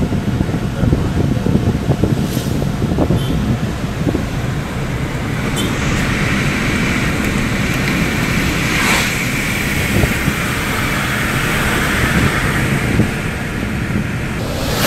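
Car driving on a road: a steady low rumble of engine and tyres, with a hiss that builds about five seconds in and eases near the end.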